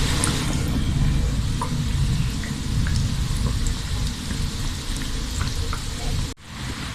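Sweet bun dough deep-frying in oil in a kadai: a steady sizzle with scattered small pops, which cuts off abruptly near the end.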